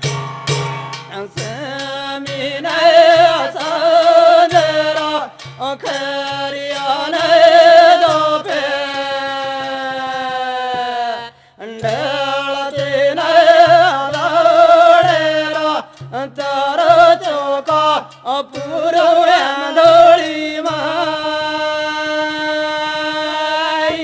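Banjara devotional folk song: one singer holding long, wavering melodic notes over a steady hand-drum beat, with brass cymbals. The music breaks off briefly about halfway through, then resumes.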